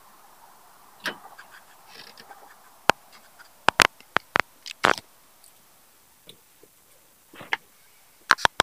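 Sharp, irregular clicks and taps of hands working the plastic turn-signal lamp housing and bulb socket, pushing a loose bulb back into place. There is a cluster of clicks a few seconds in and two more near the end.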